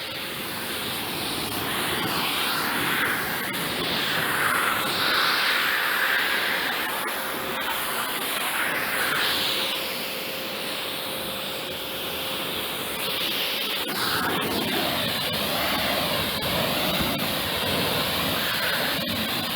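Kärcher K7 pressure washer spraying water in a steady hissing jet, with a steady hum that stops about two-thirds of the way through, where the spray sound changes.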